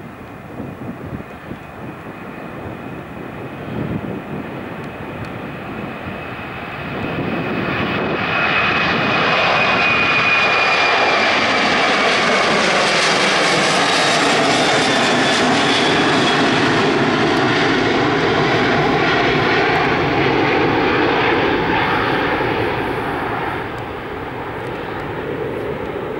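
Airbus A330 airliner's twin General Electric CF6 turbofan engines at takeoff thrust as it rolls down the runway and climbs past, the noise swelling about a quarter of the way in, staying loud, then easing near the end. A high whine over the engine noise slides slowly lower in pitch as the aircraft goes by.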